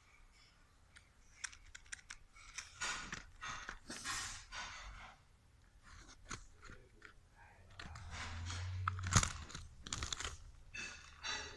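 A fidget spinner's packaging being handled and torn open: irregular crinkling, tearing and crackling rustles with small clicks, and a low hum about eight seconds in.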